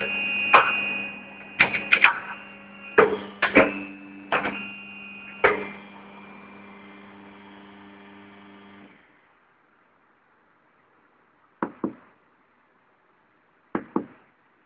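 Snap-on Quadriga tyre changer running with a steady electric hum while a series of sharp knocks and clanks ring out as the wheel is handled on the machine; the hum cuts off about nine seconds in. Afterwards, two pairs of short clicks as buttons on the machine's keypad are pressed.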